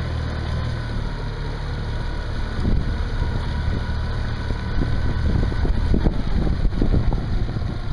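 Tohatsu four-stroke outboard motor running steadily on a duck boat. From about three seconds in, wind gusts buffet the microphone with a growing rumble.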